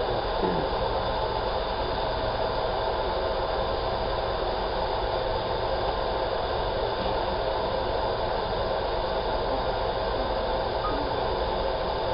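Large-format laser marking machine running on a stainless steel sheet: a steady rushing noise with a faint hum underneath, even throughout.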